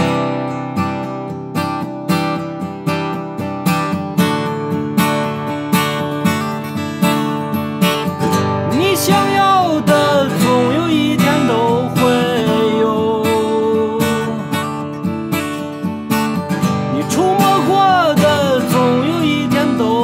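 Gibson J-45 acoustic guitar strummed in a steady rhythm; from about eight seconds in, a man's singing voice joins over the guitar.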